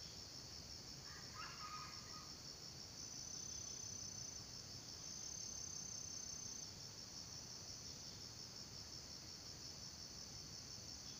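Steady, pulsing trill of insects in the undergrowth, with two longer, higher held notes a few seconds in. A brief faint chirp sounds about a second in.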